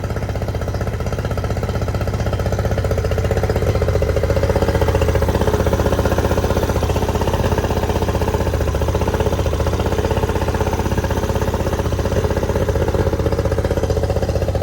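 Freshly rebuilt Yamaha 90 hp two-stroke three-cylinder outboard motor running steadily at low speed, its loudness rising a little a few seconds in and then holding.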